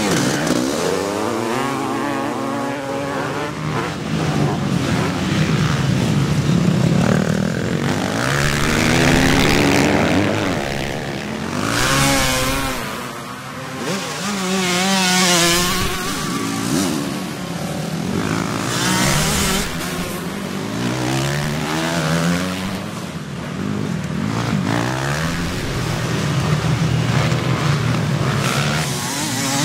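Vintage motocross bikes' engines revving hard as they race through a dirt-track corner, several bikes in turn, each rising in pitch through the gears and dropping back on the shifts.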